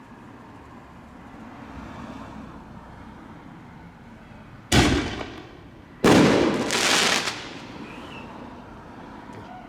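Fireworks going off outdoors: two sudden loud bangs just over a second apart, the second trailing into about a second of continued crackle.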